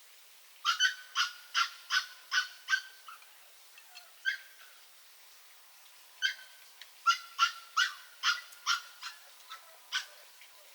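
A small dog yapping in quick runs of short, high barks, about three a second, with a pause in the middle.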